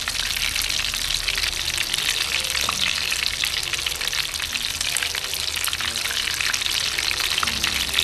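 Breadcrumb-coated egg kababs deep-frying in hot oil: a steady, dense sizzle full of small crackles.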